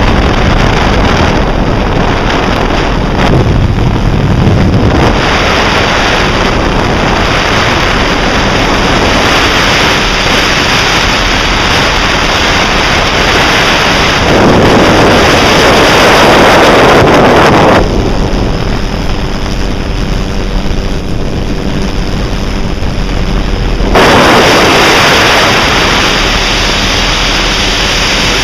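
Loud wind buffeting the microphone as a steady rushing noise. Its character changes abruptly twice, about two-thirds of the way in and again near the end.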